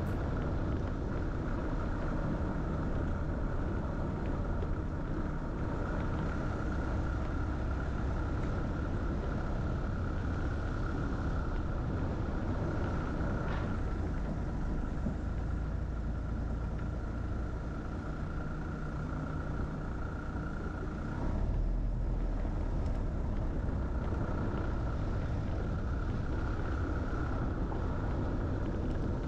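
A car driving along a road: steady engine and tyre rumble with a constant higher hum. About two-thirds of the way through, the hum drops out for a couple of seconds while the low rumble grows louder, then the steady sound resumes.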